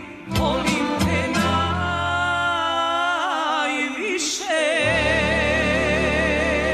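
Serbian folk song played live by a female singer with a folk orchestra of violins, accordion, clarinets, double bass, guitar and drums. The band plays a few sharp accented hits, then the singer holds a long note with vibrato while the band sustains a full chord beneath it.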